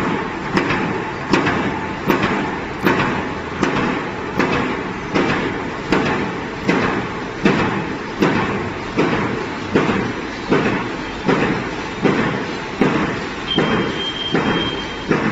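Razor-wire (barbed tape) making machine running. Its stamping press strikes in an even rhythm, a sharp knock about three times every two seconds, over a steady mechanical running noise.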